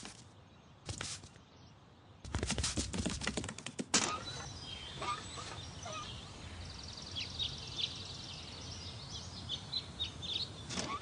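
A short burst of clattering about two seconds in, ending in a sharp click. Then small birds chirping over a faint outdoor background.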